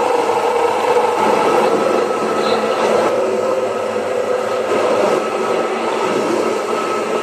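Electric grinding mill running steadily, its motor and grinding mechanism turning wet material into a white paste.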